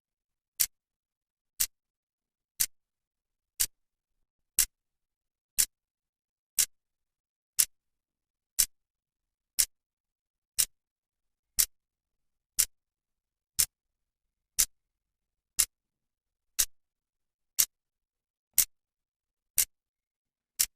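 A clock's second hand ticking: one sharp, crisp tick exactly every second.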